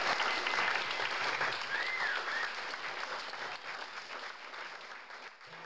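Audience applauding: dense clapping that fades steadily away.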